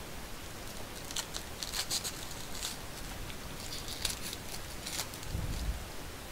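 Foil trading-card pack wrapper crinkling and crackling as it is opened and handled: a run of short, crisp crackles for about four seconds over a steady background hiss.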